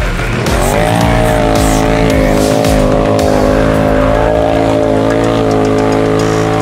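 Off-road 4x4's engine revving up hard in the first second and then held at high revs, its pitch wavering slightly, as the vehicle pushes through a deep muddy puddle.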